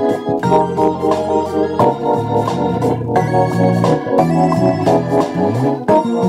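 Electric bass guitar playing a groove along with a backing track of sustained organ-like keyboard chords and percussion, the bass line moving between notes with a sliding note near the end.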